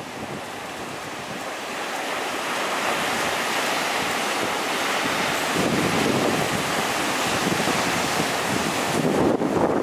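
Heavy typhoon surf breaking and washing in, with wind buffeting the microphone; the rush swells louder around the middle and again near the end.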